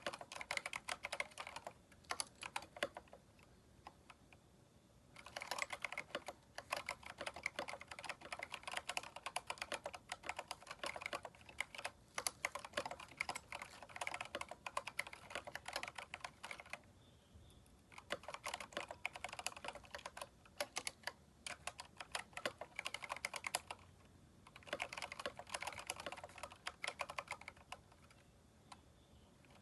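Typing on a Keychron K4 mechanical keyboard fitted with aftermarket keycaps: fast runs of key clicks broken by short pauses of a second or two.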